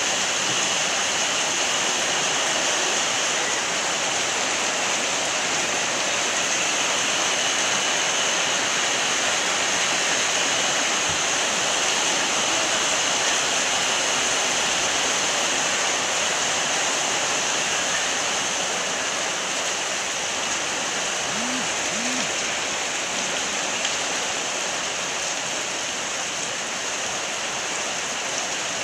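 Steady sizzling of lumpia filling stir-frying in a pan.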